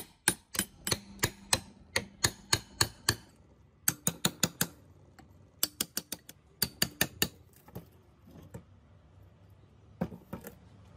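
Hammer blows on a steel chisel wedged into the seam of a rusty cast-iron gear housing: sharp metallic taps about three to four a second, in runs with short pauses, driving the seized housing halves apart.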